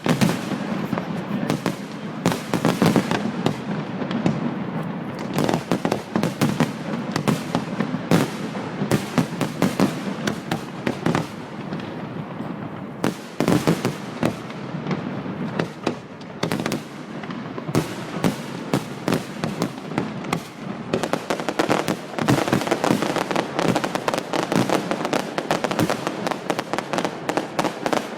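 Fireworks display going off without pause: a dense run of bangs, cracks and crackling shells overlapping one another.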